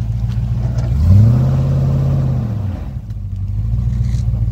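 Range Rover Classic's 3.9-litre V8 engine running under load while its tyres churn through mud. About a second in it revs up, holds high for a second and a half, then drops back to a steady lower run.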